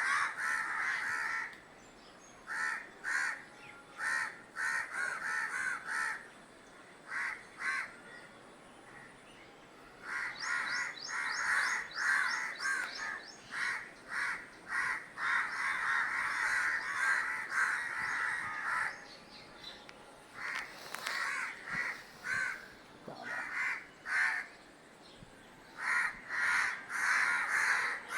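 Crow cawing: many calls in quick runs, broken by short pauses of a second or two.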